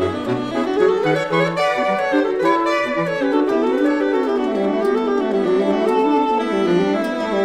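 Saxophone quartet of soprano, alto, tenor and baritone saxophones playing sustained chords in close harmony, the parts moving in slow steps.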